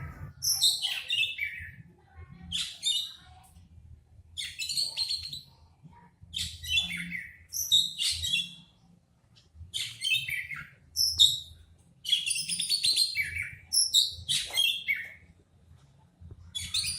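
Oriental magpie-robin (kacer) giving short, falling phrases of high notes, about one every second and a half; its keeper calls this sound coughing.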